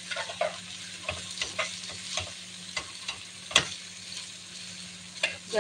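A metal spoon stirring and scraping a sautéed mix of ground meat, vegetables and egg in a granite-coated pot, with irregular clicks of the spoon against the pot over a steady sizzle; one click about three and a half seconds in is the loudest.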